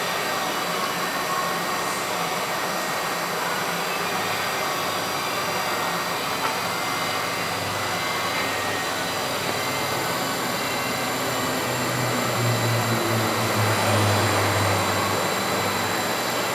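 KOMO VR508 Mach II CNC router running: a steady machine rush with a high, even whine through it. A deeper hum swells from about twelve to fifteen seconds in, then settles.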